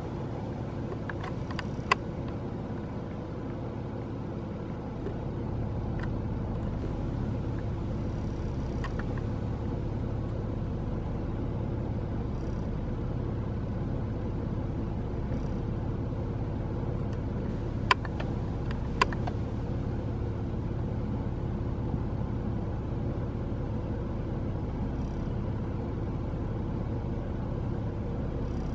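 A steady low rumble, like a running motor or traffic, with a few sharp clicks: one about 2 seconds in and two close together near the middle.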